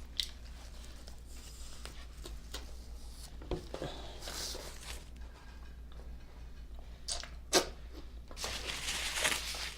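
Close-miked eating sounds of a soft frozen custard and Oreo cookie sandwich being chewed: small wet smacks and mouth clicks, with a sharper click about seven and a half seconds in, over a low steady hum.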